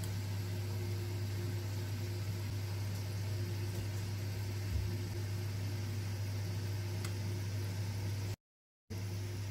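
Steady low hum with an even hiss over it, and a faint tick or two. The sound cuts out completely for about half a second near the end.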